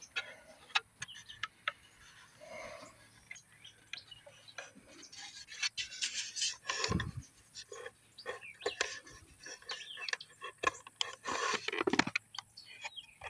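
Hands fiddling with a small plastic game camera close to the microphone: irregular clicks, taps and rubbing of fingers on the plastic case.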